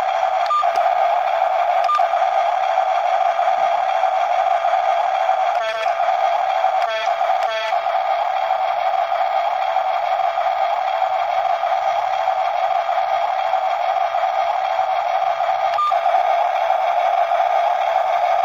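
Steady high whine of the electric motors and gears of remote-control toy construction machines working, with a few short clicks and brief chattering strokes.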